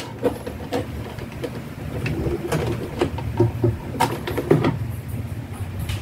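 Irregular clicks and knocks of hands working on the wiring inside a washing machine's base, over a steady low hum.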